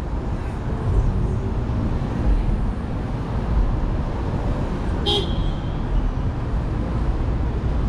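Steady city street traffic rumble, with one short vehicle horn toot about five seconds in.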